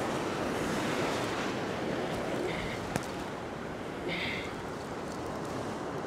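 Surf breaking and washing across a rock platform in a steady rush, with two brief high squeaks about two and a half and four seconds in.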